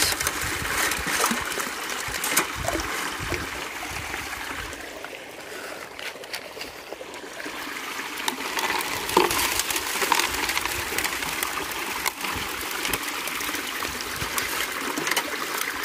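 Water from a Keene Mini Max high banker rushing steadily over its grizzly bars and sluice, with scattered clicks of rocks and clay knocking on the metal bars as they are worked through by hand.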